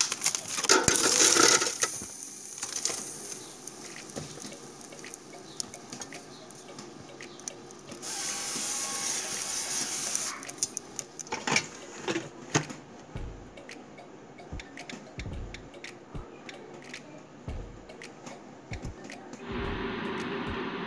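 Kitchen handling sounds as frozen kibbeh are laid on a wire-mesh basket: scattered light knocks and clatters, with two spells of hiss-like noise, one early and one about halfway. Near the end a steady hum with a low drone starts.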